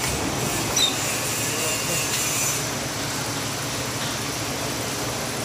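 Steady hum and din of a working metal fabrication shop floor, machinery running continuously, with a brief sharper sound just under a second in.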